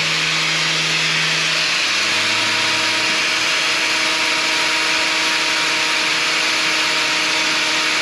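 Power hoof-trimming grinder cutting a cow's hoof: a continuous grinding hiss over a steady motor hum whose pitch shifts about two seconds in.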